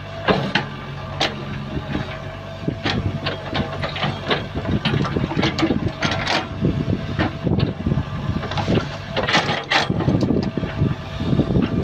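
Sumitomo excavator's diesel engine running under load with a steady whine over it, while the bucket scrapes and knocks against rock and mud in the trench with many sharp clanks.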